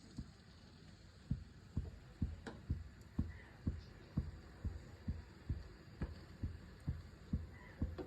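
Soft, dull thuds repeating evenly about twice a second, with one sharper knock among them.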